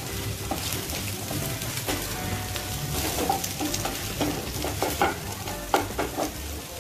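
Sliced sausage and egg sizzling in a little oil in a frying pan, while a wooden spatula stirs and scrapes through them with frequent short scrapes and knocks against the pan.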